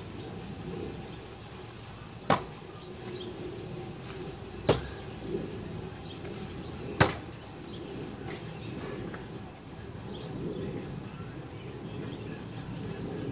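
Three Bill Page Bullseye Seeker throwing knives striking a wooden target one after another, about two and a half seconds apart, each a sharp thunk. Insects chirp steadily in the background.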